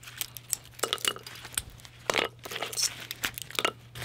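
18650 cells and their plastic spacers being pulled apart from a cracked-open laptop battery pack by gloved hands: irregular crackling, clicking and light clinking.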